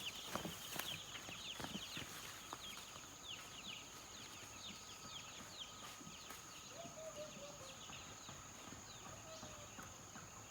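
Chickens peeping: many short, high, falling chirps overlapping steadily, with a couple of lower calls in the second half.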